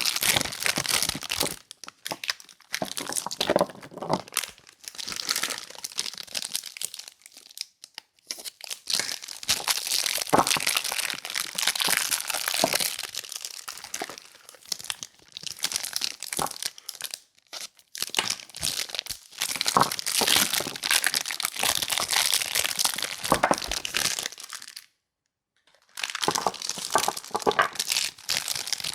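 Soap bar packaging being unwrapped by hand: wrapping crinkling and rustling in irregular bursts with crisp crackles and some tearing. It cuts out briefly near the end.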